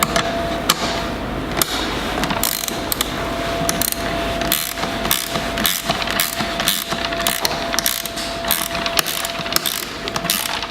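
Ratchet wrench clicking as a nylon-insert lock nut is tightened onto a bolt, in runs of quick clicks with short pauses between strokes.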